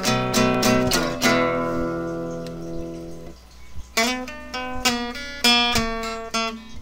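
Background music on acoustic guitar: strummed chords, one left to ring and fade for about two seconds before the strumming starts again.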